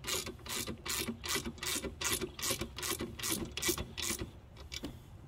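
Hand ratchet wrench clicking in a steady rhythm, about three or four clicks a second, as a 13 mm lock nut is tightened down on a bolt. The clicking stops about four seconds in.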